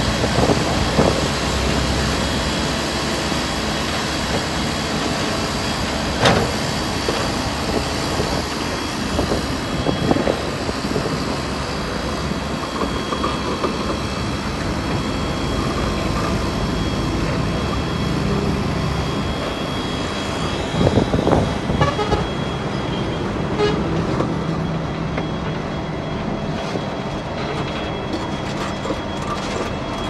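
Diesel engines of heavy earthmoving machinery, a bulldozer and dump trucks, running steadily, with a few sharp metallic clanks about 6, 10 and 21 seconds in.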